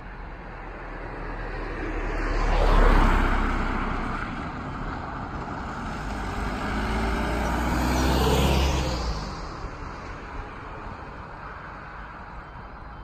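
Road traffic passing over the level crossing: one car goes by about 3 seconds in, then a van about 8 seconds in, each swelling up and fading away, the van's engine note dropping in pitch as it passes.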